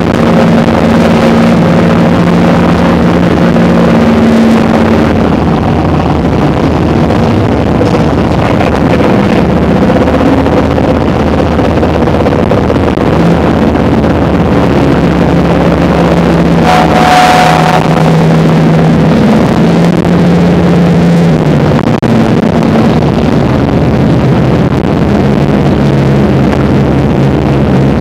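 Work boat's engines running steadily under way, their hum stepping up and down a little, over rushing water and wind on the microphone. A short hiss comes about two thirds of the way through.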